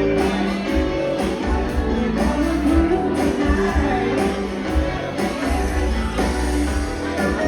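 A band playing an upbeat song, with singing over a steady bass line and a regular drum beat.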